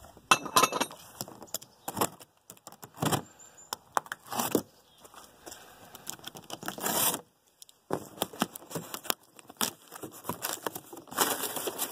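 Cardboard shipping boxes being handled and slit open with a utility knife: irregular scrapes, rustles and taps, with a sharp knock near the start and a longer scraping rip about seven seconds in.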